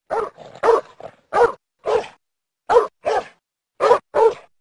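A dog barking repeatedly: about eight short barks, some in quick pairs.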